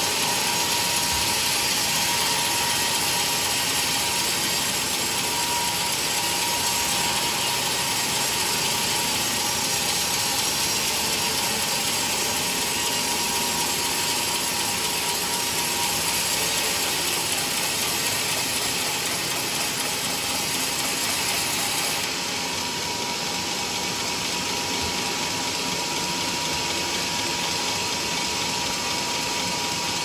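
Vertical band sawmill running and sawing through a teak log: a steady mechanical noise with a thin whine running through it as the blade cuts a thick plank.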